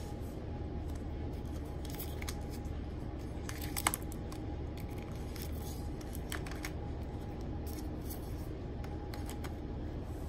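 LG Classic Flip, Nokia 2760 Flip and TCL Flip 2 phones being snapped open by hand and their keys pressed: a scatter of sharp plastic clicks and snaps, the loudest about four seconds in, over a steady low hum.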